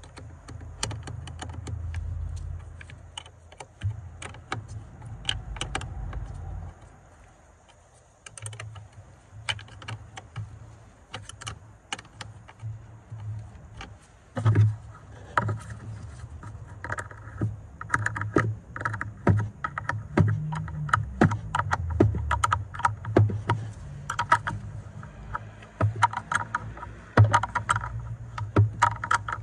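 Hand wrench and battery hardware clinking and clicking as the battery's hold-down and terminal clamp nuts are fitted and tightened. The metal clicks are scattered, coming thicker in the second half, over a low rumble of handling.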